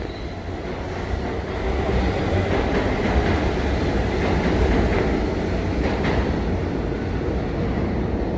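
Subway train rumbling through the station: a loud, steady low rumble that swells about two seconds in and holds.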